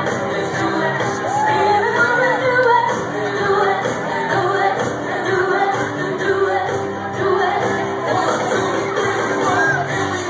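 Loud live music with singing, and a crowd shouting and singing along in a packed bar.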